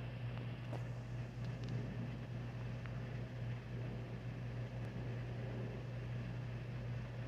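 A steady low hum under a constant hiss, with a few faint ticks and no thunder.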